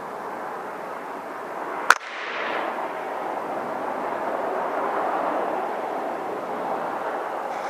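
A single sharp air rifle shot about two seconds in, over a steady noisy background hum.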